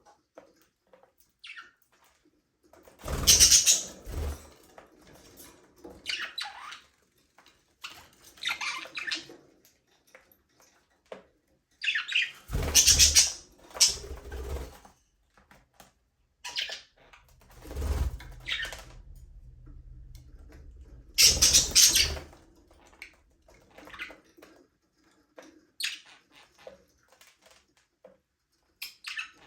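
Budgerigars chirping in short, scattered calls, with three loud bursts of wing flapping as birds fly about.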